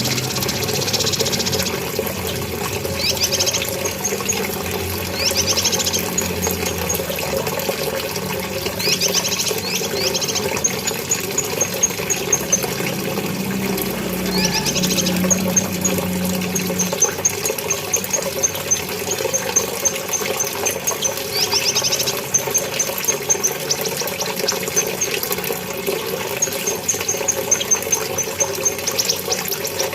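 Cucak kinoi singing in repeated high phrases every few seconds, each a quick run of sweeping notes or a string of short high pips. The song is meant to coax a silent cucak kinoi into singing. A steady low rushing noise, like running water, lies underneath.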